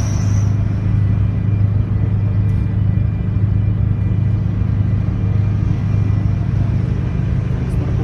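Steady, continuous low rumble of a ship's engines and machinery running.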